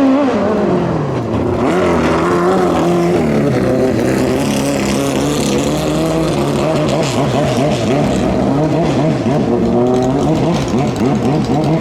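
Racing boat engine running hard at high revs. Its pitch drops in the first second, holds fairly steady, then rises again near the end.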